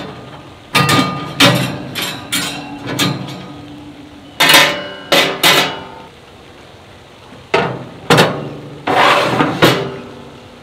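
Quarter-inch 304 stainless steel cooking grates clanking as they are set back into a steel charcoal grill: about a dozen sharp metal knocks in three clusters, some ringing briefly.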